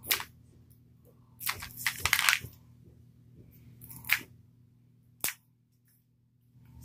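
Plastic wrap on a Mini Brands capsule ball being picked and peeled by fingers: scattered crinkling and scratching, loudest about two seconds in, with a single sharp click a little past five seconds.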